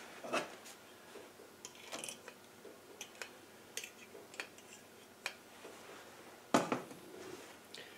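Scattered light metallic clinks and taps of gearbox parts and hand tools being handled on a workbench, with one louder knock about six and a half seconds in.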